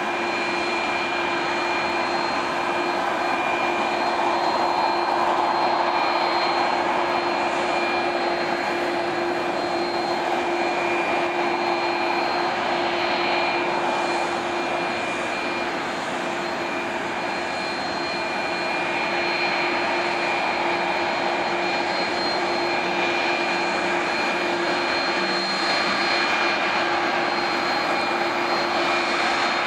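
Jet aircraft engines running steadily: a constant whine made of a few held tones over a broad rush.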